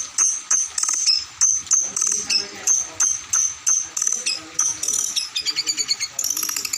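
Songbird singing a training recording of contest song: sharp, high notes repeated about three times a second, breaking into a fast high trill about five seconds in.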